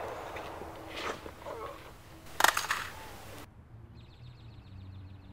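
A loud, sharp crack about two and a half seconds in, with a noisy tail that cuts off abruptly a second later. Faint, rapid, high chirping follows near the end.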